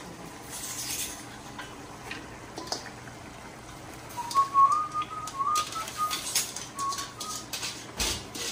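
A person whistling a short, broken tune, starting about four seconds in. Light rustling and clicks come from handling chopped leafy greens in a metal colander over a pot.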